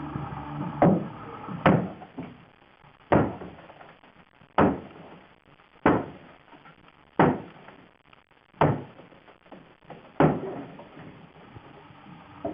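A 12 lb sledgehammer smashing into a DJ booth: eight heavy blows, about one every second and a half, each a sharp crash with a short rattling tail.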